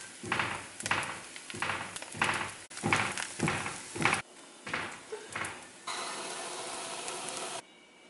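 Kitchen sounds from a flatbread frying in a nonstick pan: a run of short knocking or scraping sounds about two a second, thinning out about halfway, then a steady sizzle that cuts off just before the end.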